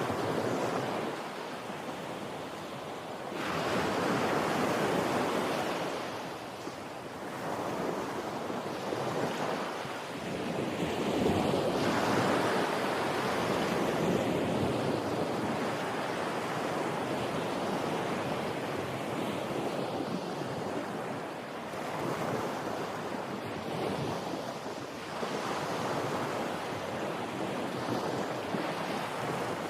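Ocean waves breaking and washing on a shore, a steady rushing that swells and falls back in slow surges every few seconds.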